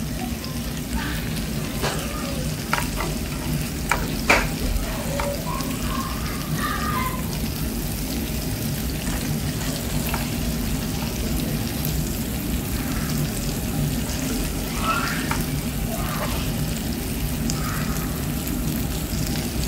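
Masala-coated prawns sizzling in shallow oil in a nonstick frying pan. A plastic slotted spatula scrapes and stirs through them as they are lifted out, with a few sharp taps against the pan a few seconds in.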